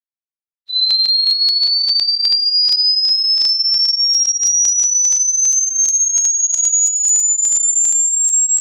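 Hearing-test sine tone: a single high, pure tone that starts about two-thirds of a second in and glides slowly and steadily upward in pitch, climbing toward the upper limit of hearing.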